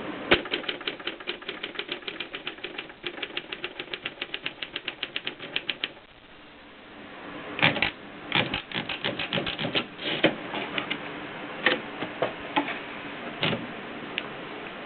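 Mercedes Superba manual typewriter being typed on: a quick, very even run of keystrokes for about six seconds, a short pause, then louder, irregular key strikes.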